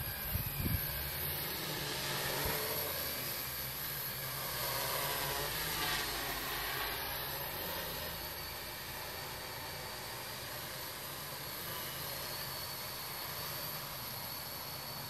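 Electric quadcopter's motors and propellers buzzing as it flies about, the pitch swinging up and down with the throttle. It is loudest about six seconds in as it passes closest, then a little quieter.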